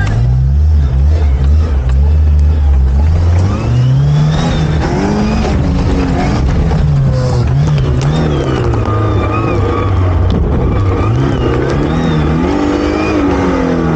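Off-road 4x4's engine heard from inside the vehicle: it runs low and steady for the first few seconds, then revs up and down again and again.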